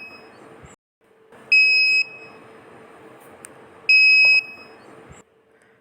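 Arduino alarm buzzer beeping twice, each beep a steady high tone about half a second long, a couple of seconds apart, over a faint steady hum: the DS3231 real-time clock's alarm has gone off.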